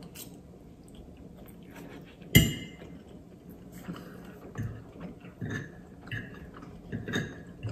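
A person chewing a mouthful of pasta with wet mouth clicks and smacks, and a fork clinking and scraping on the plate while twirling noodles. A single sharp knock about two and a half seconds in is the loudest sound.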